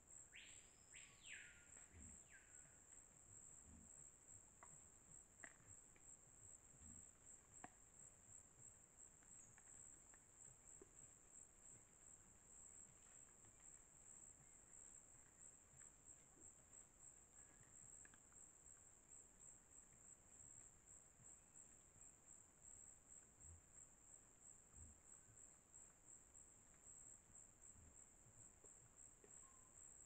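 Faint, steady high-pitched chirring of crickets or other insects in tropical forest. About a second in, a bird gives a few quick whistles that sweep up and down, and there are scattered faint taps.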